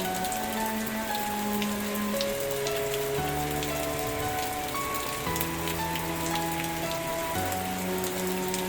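Steady rain with many individual drop hits, over soft background music of slow held notes and chords that change every second or two.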